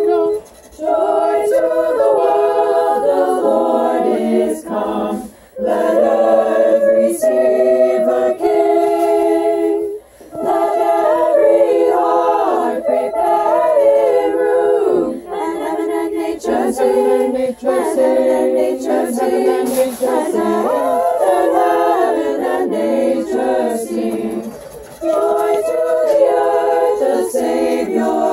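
A small group of carolers singing a Christmas carol a cappella together, with short breaks between phrases.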